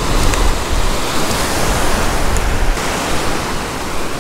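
Ocean surf washing steadily onto the beach, with wind rumbling on the microphone that eases about three seconds in.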